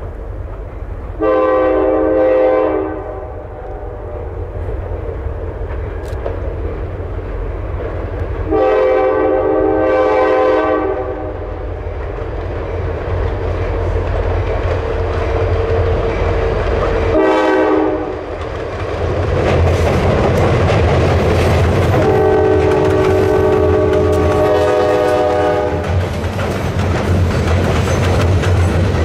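Diesel freight locomotive sounding its multi-tone air horn in the grade-crossing pattern: two long blasts, one short and a final long one, over the low rumble of the approaching engine. About two-thirds of the way in, the freight cars reach the bridge and their wheels rumble and clack over the rails.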